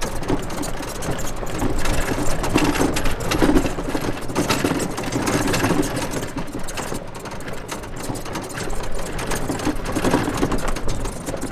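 Electric golf cart driving over a rough dirt and gravel track, its body rattling in a dense, rapid clatter over the bumps.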